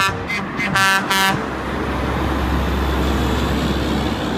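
A horn toots briefly at the start and again about a second in, then a concrete mixer truck's diesel engine runs with a steady low rumble as the truck drives past.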